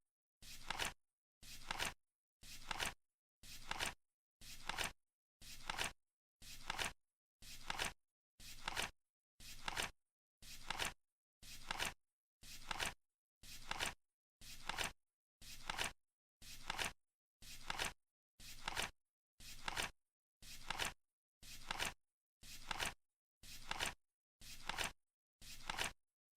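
Flip-clock countdown sound effect: a short, noisy flip once every second, about half a second long, swelling and then cutting off abruptly, with dead silence between flips.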